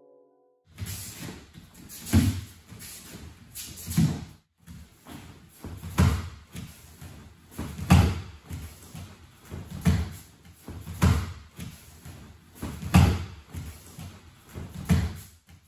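Judoka moving on tatami mats: repeated thuds about every two seconds from bare feet and bodies on the mats as ko uchi gari entries are drilled, with cloth rustling and lighter steps between. There is a brief break about four and a half seconds in.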